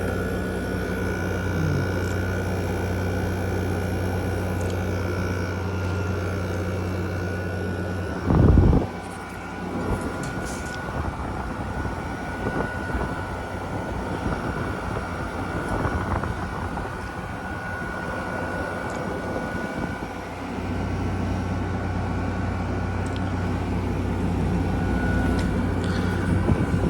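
2016 Frigidaire window air conditioner running: a steady whoosh of the fan with a constant high tone over it and a low hum beneath. About eight seconds in there is a loud short thump and the low hum drops out, returning about twenty seconds in while the rest keeps running.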